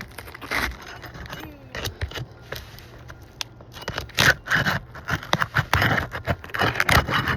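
3-tab asphalt shingles being worked loose by hand and tool: irregular scraping and crackling, growing louder and busier in the second half.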